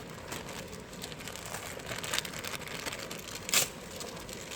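Hands handling a spare A/C compressor gasket: light crinkling and small scattered clicks, with one sharper click about three and a half seconds in.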